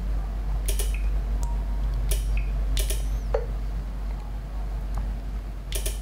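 A few short clicks, about four, as buttons on an Apple TV remote are pressed, over a steady low electrical hum.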